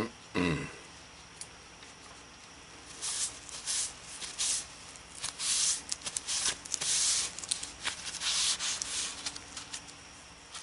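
Cloth rubbing finish onto a redbud bowl spinning on the lathe, making scratchy rubbing in irregular strokes that start about three seconds in.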